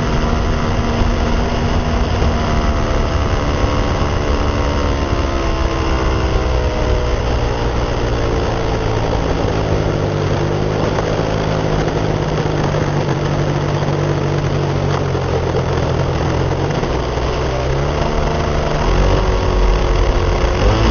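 Calmato Sports 40 RC model plane's glow engine, heard from on board over constant wind rush: its pitch falls steadily as it is throttled back, holds at a low idle, then rises again as the throttle is opened near the end.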